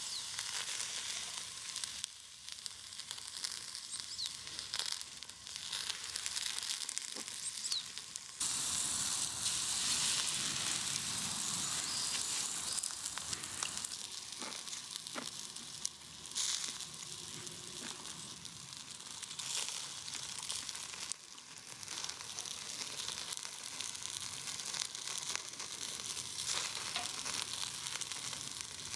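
Food sizzling as it cooks over a campfire, a steady frying hiss that grows louder about eight seconds in, with a few light clicks.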